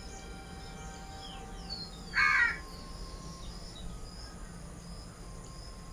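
A crow caws once, loud and harsh, about two seconds in, over faint scattered chirping of small birds.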